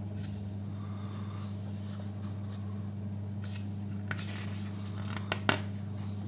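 Pages of a printed book being handled and turned by hand: soft paper rustles and two sharp clicks about five seconds in, over a steady low hum.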